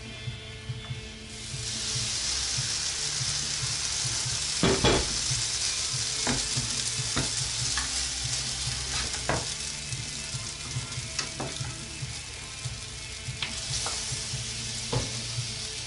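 Oatmeal pancake batter sizzling in hot frying pans; the hiss swells about a second and a half in, after fresh batter goes into the pan. Short knocks and scrapes of a spatula against the pan run through it, the loudest about five seconds in.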